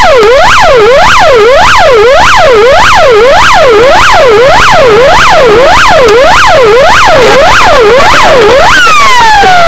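Police patrol car siren, heard from inside the car, sweeping quickly up and down in pitch about twice a second. Near the end the sweeping stops and it slides down in one long falling tone as the siren winds down.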